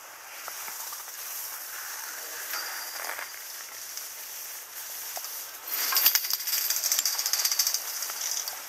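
Skis hissing over snow while being pulled up a drag lift; from about six seconds in the hiss turns louder and rougher, full of fine scraping crackles.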